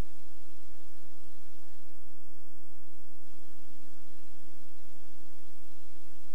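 Steady electrical hum from a VHS playback and capture chain with no programme playing: one unchanging tone with a low buzz beneath it, at an even level throughout.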